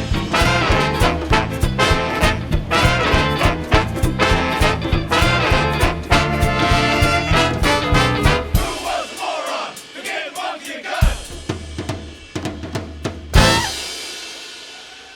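Eighteen-piece big jazz band playing a swing tune with drums and brass over a steady beat. About nine seconds in the bass drops out, and the band closes on a final loud hit a little after thirteen seconds that rings out and fades.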